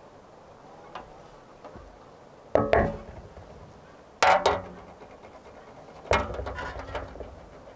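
Metal cookware clanking: a large metal lid and tray knocked together in three pairs of sharp, ringing clanks about two seconds apart, the last pair followed by a brief rattle.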